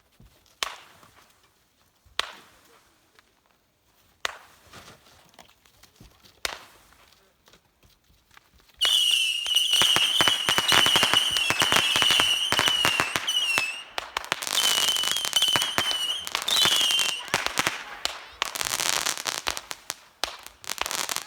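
Consumer fireworks going off: a few single bangs a couple of seconds apart, then about nine seconds in a dense barrage of rapid pops and crackling. A high warbling whistle rides over the barrage until about 17 seconds in, and the crackling carries on nearly to the end.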